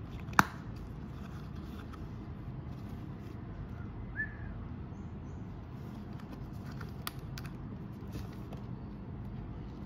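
Sneakers being handled over steady low background rumble: a sharp click about half a second in, a short high chirp about four seconds in, and a few light ticks around seven seconds.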